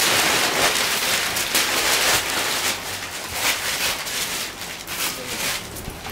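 Plastic wrapping crinkling and rustling as a clothing suit is handled and unfolded: a dense crackle that eases off toward the end.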